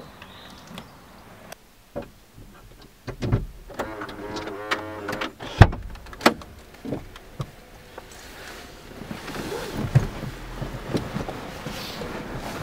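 Handling sounds inside a car: the sun visor is pulled down with a wavering plastic creak and a sharp click, followed by a second click. Then comes soft rustling of a paper photograph and clothing, with small knocks.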